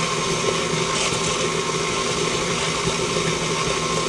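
KitchenAid stand mixer running at a steady speed, its flat beater turning through thick peanut butter cookie dough in a stainless steel bowl.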